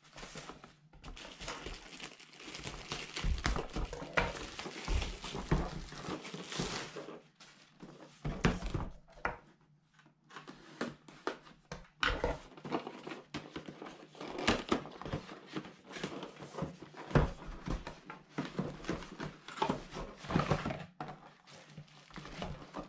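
Plastic wrapping crinkling as a shrink-wrapped box is unwrapped, continuous for the first several seconds. After that come broken rustles and light knocks of cardboard boxes being handled and opened.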